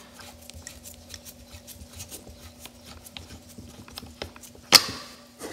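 Small clicks and light scraping of a threaded switch fitting being unscrewed by hand from an old automotive A/C receiver-drier, with one sharper metal click near the end.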